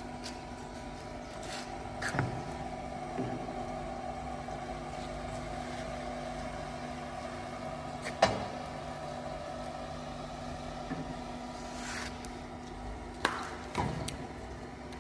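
Edge banding machine running with a steady hum as a panel edge is fed through it, with a few sharp clicks along the way.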